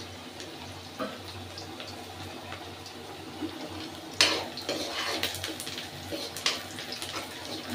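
Chopped onions frying in oil in a kadai with a steady sizzle, while a steel spoon stirs them and scrapes and clinks against the pan a few times, loudest about four seconds in.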